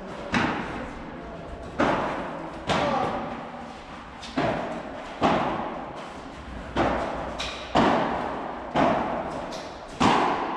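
Padel rally: the ball is hit sharply back and forth, about nine hits roughly a second apart, each followed by a short echo.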